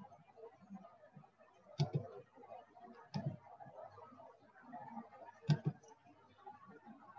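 Computer mouse clicking: three sharp clicks spaced a second or two apart, the last a quick double click.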